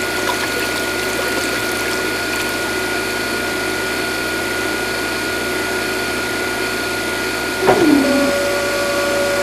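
Small DC motor of a miniature model machine running steadily. About three-quarters of the way through, a tone drops sharply in pitch and a lower steady tone carries on.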